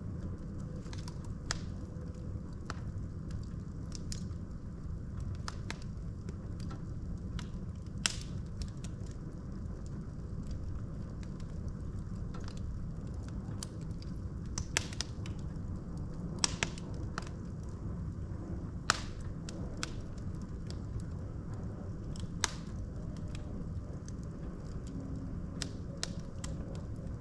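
Wood fire burning in a fireplace: a steady low rumble of flames with irregular sharp crackles and pops from the logs, a few louder pops scattered through.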